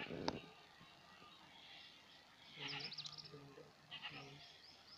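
Faint bleating of a farm animal, in two calls, the first about two and a half seconds in and a shorter one near the end, with quick high bird chirps over them. A sharp click comes just at the start.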